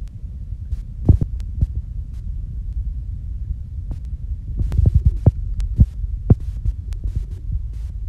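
Wind buffeting the microphone as a steady, uneven low rumble, with scattered sharp clicks and knocks, bunched about five seconds in.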